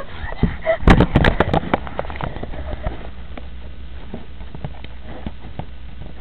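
Camera handling noise: a cluster of knocks and rubbing on the camera body for about a second near the start, then scattered faint clicks over a low hum as the camera is covered or set down.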